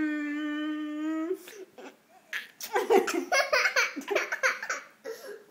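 A person humming one long steady note, which breaks off with a slight rise in pitch about a second and a half in, followed by bursts of giggling and laughter.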